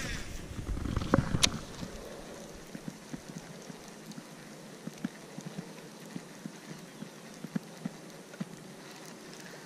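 Rod handling and a cast with a baitcasting rod: a few knocks and a sharp click in the first two seconds. Then faint, irregular light taps and ticks over a quiet background while the lure is reeled in.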